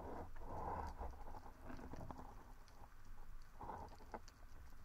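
Muffled underwater swishes and rubbing from a freediver moving along a rocky seabed, heard through the camera's waterproof housing, over a low rumble with scattered faint clicks.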